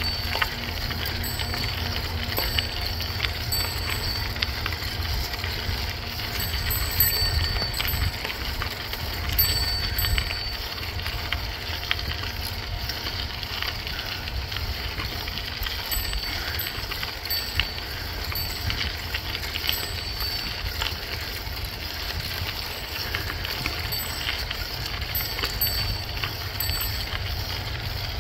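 Bicycle rolling over a gravel trail: steady tyre noise with many small clicks and knocks from the gravel and bike, over a low rumble of wind on the microphone.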